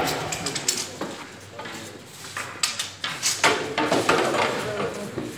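Practice swords striking round shields during group sparring: a series of irregular sharp knocks and clacks, echoing off the concrete of a parking garage.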